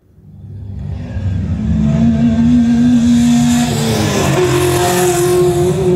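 Race car engine sound effect played back through a Bose Smart Ultra Soundbar: it fades in from silence, grows loud, and holds a steady pitch that steps up about four seconds in.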